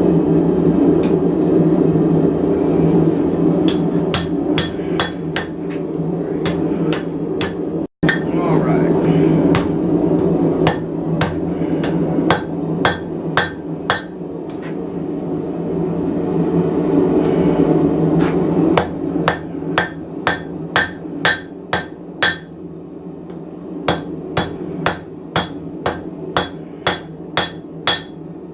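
Blacksmith's hammer striking hot steel on an anvil, each blow leaving a clear high ring from the anvil. The blows come in runs, about two a second in the second half, over a steady low rumble.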